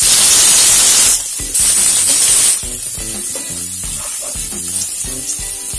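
Chopped onions hitting hot oil and mustard seeds in a nonstick frying pan, with a loud hissing sizzle. The sizzle dips briefly about a second in, then settles to a softer, steady sizzle after about two and a half seconds as a wooden spatula stirs the onions.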